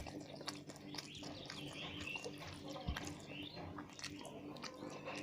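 Close-miked wet chewing and mouth sounds of someone eating rice with curry, full of small clicks, smacks and squelches.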